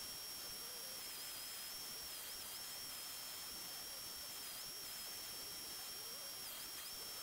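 Dremel 4300 rotary tool on a flex shaft, a Kutzall carbide burr grinding into wood: a steady high whine over a hiss, its pitch dipping briefly several times as the burr bites under load.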